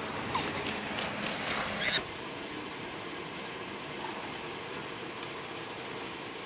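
Outdoor ambient noise recorded by a camcorder. For about two seconds it is louder, with scattered clicks, then after an abrupt cut it turns into an even, steady hiss.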